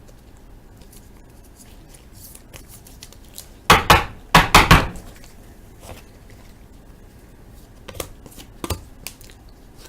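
A quick run of sharp plastic clacks about four seconds in, then two lighter taps near the end: a trading card being handled and slipped into a rigid plastic top loader on a tabletop.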